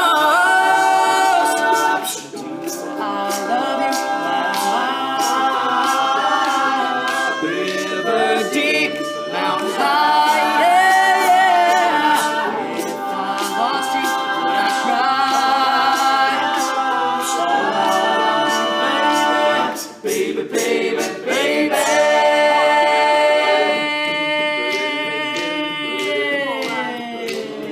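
Men's a cappella group singing close harmony chords, with a steady beat of sharp clicks throughout; the chords slide down in pitch near the end.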